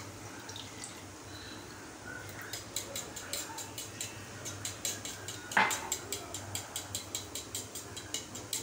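Metal fork beating egg and milk in a ceramic bowl, clinking against the bowl in a quick even rhythm of about four or five strikes a second from about two seconds in, with one louder knock about halfway through.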